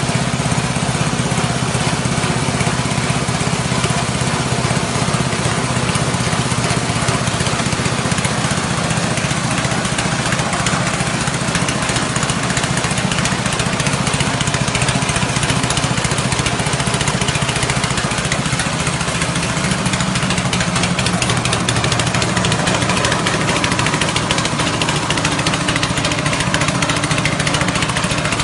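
Rice-husk grinding machine driven by a 6.5 hp petrol engine, running steadily at speed, the engine's hum under a dense, even grinding noise.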